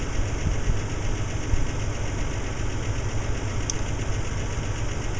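Pickup truck engine idling steadily, heard from inside the cab.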